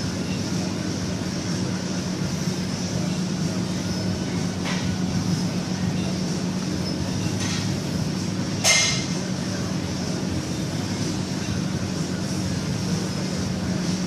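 Steady low droning hum of gym machinery, with a few faint clicks and one sharp metal clink about nine seconds in as the loaded barbell is handled on the bench press rack.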